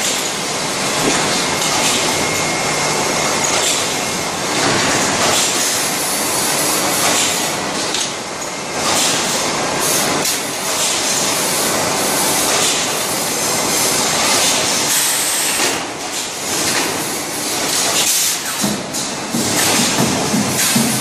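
Steady, loud machine noise in a wire-mesh welding shop, the multi-spot mesh welding machine and the steel wires being loaded into its jig, with frequent short metallic clicks and clatter throughout.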